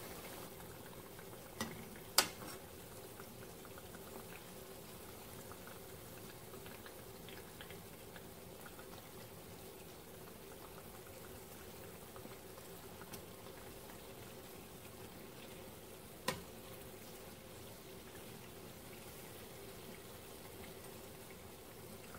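Yeast-dough donuts deep-frying in hot oil, a faint steady bubbling sizzle. A sharp tap about two seconds in and another near sixteen seconds.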